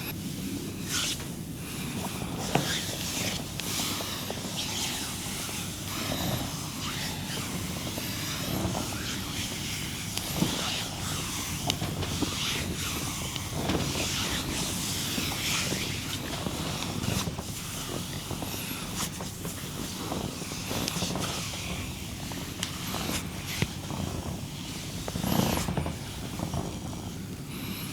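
Close-miked massage sounds: hands rubbing and working over skin without a pause, with frequent irregular sharp clicks and slaps.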